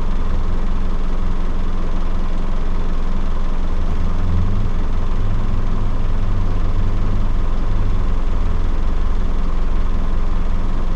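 Land Rover Defender 90 engine idling steadily with the vehicle standing still: an even, low rumble.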